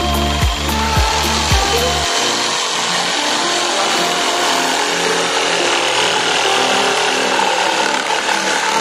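Makita JV103D 12V cordless brushless jigsaw running steadily as its blade cuts through a wooden board.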